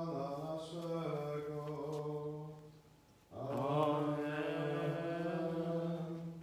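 A man singing a slow liturgical chant in long held notes, in two phrases with a short break about three seconds in.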